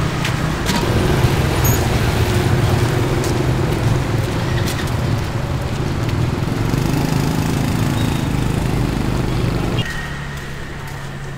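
A motor vehicle's engine running close by, a steady low hum over traffic noise, its pitch shifting a little and falling away about ten seconds in.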